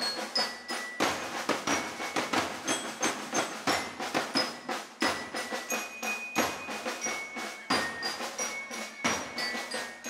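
Background music led by mallet percussion: a quick, steady run of short struck notes.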